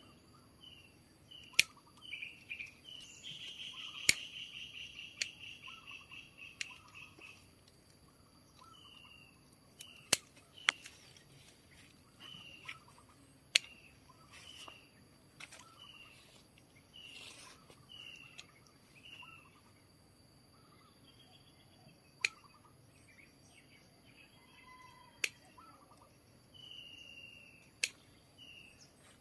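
A bird calling over and over with short, falling whistled notes about once a second, breaking into a fast trill for a few seconds near the start, over a steady high insect drone. Sharp clicks every few seconds stand out as the loudest sounds.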